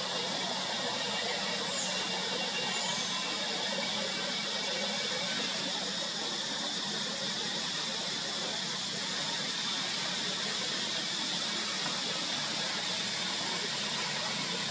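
Steady outdoor forest ambience: an even, unbroken high-pitched hiss and drone, with two brief faint high squeaks about two and three seconds in.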